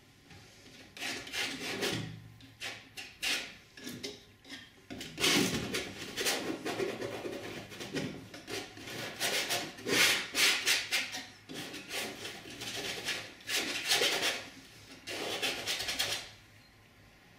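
Painting knife spreading and scraping oil paint across a stretched cotton canvas: a rasping rub in short, irregular strokes that starts about a second in and stops about a second before the end.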